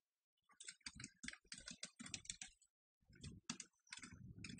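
Faint typing on a computer keyboard: two quick runs of keystrokes with a short pause about halfway.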